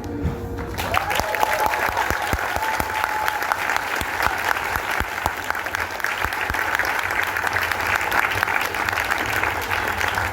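The last held chord of an ensemble piece fades out, and audience applause breaks out about a second in, with a voice calling out over the clapping.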